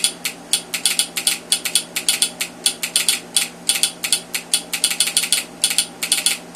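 Telegraph sounder and straight key clacking out hand-sent Morse code in an uneven rhythm of dots and dashes. The clicks often come in close pairs as the sounder's armature pulls down and releases. A steady low hum runs underneath.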